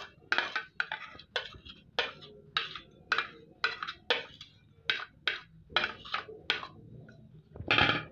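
A spoon scraping grated cucumber off a plate into a steel mesh strainer, striking the plate in short strokes about twice a second, with a longer, louder scrape near the end.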